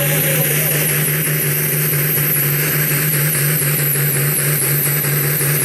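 Pulling tractor's turbocharged diesel engine running flat out under load as it drags the sled, a steady loud engine note topped by a high, slightly wavering turbo whistle.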